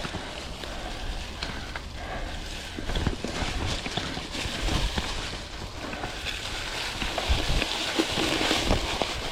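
Vintage Klein Attitude Comp mountain bike rolling along a dirt single-track trail: steady tyre noise on the ground with frequent sharp rattles and knocks from the bike over bumps, and low rumble from wind and jolts on the chest-mounted camera.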